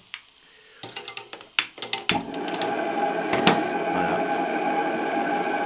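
Gas burner under a live-steam model boat's boiler, fed through a single-diaphragm gas regulator with a doubled nitrile membrane: irregular pops and clicks as the regulator oscillates at its regulation pressure, then about two seconds in a steady rushing flame with a faint hum as it stabilises.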